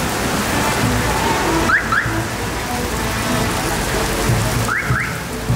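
Heavy rain falling steadily. Twice, about two seconds in and again near the end, a quick pair of short rising chirps sounds over it.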